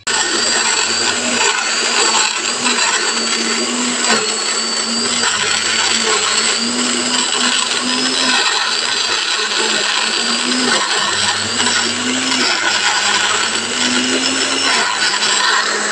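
Small electric countertop blender starting abruptly and running steadily at a wavering pitch, grinding red chillies, shallots, garlic and candlenuts into a wet spice paste.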